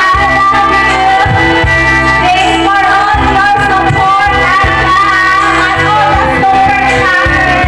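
A woman singing into a microphone over backing music, holding long notes with a steady accompaniment underneath.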